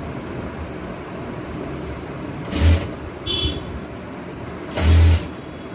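Sewing machine stitching in two short runs, about two and a half seconds apart, over a steady background hum.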